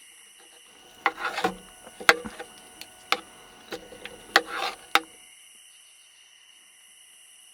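Cutlery clinking and scraping against a dish several times over about four seconds, the sharper strikes ringing briefly, over a steady high chirring of insects.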